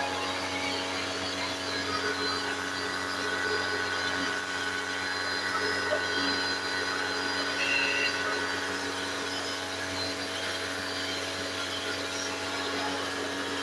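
A steady machine drone: an electric motor running without a break, with an even hiss and several steady whining tones.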